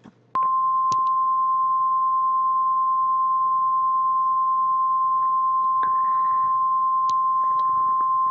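A synthetic 1050 Hz single-tone alert from EAS encoder software, the NOAA Weather Radio warning alarm tone that switches on tone-alert radios. It is one steady pure tone that starts with a click about half a second in and holds at an even level.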